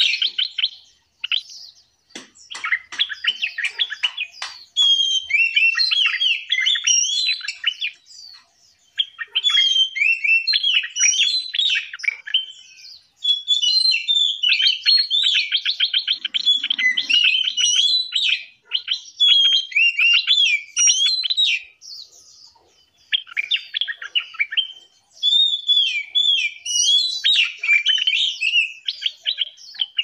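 Small caged songbirds singing: long phrases of quick chirps, warbles and fast rattling trills, broken by short pauses of a second or so.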